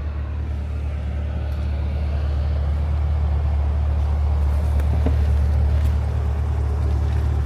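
Chevrolet Corvette C8's 6.2-litre LT2 V8 idling with a steady low rumble, heard from inside the cabin.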